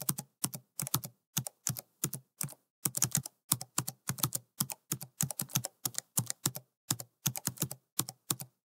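Computer keyboard typing: quick, irregular key clicks in short runs with brief pauses between, several clicks a second.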